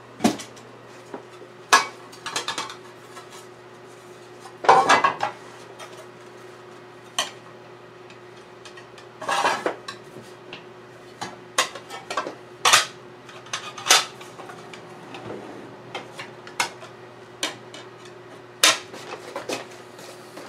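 Scattered clicks, knocks and short bouts of clattering from parts and hand tools handled on a workbench, as plastic air scoops are fitted to an aluminium dual-core radiator. A steady low hum runs underneath.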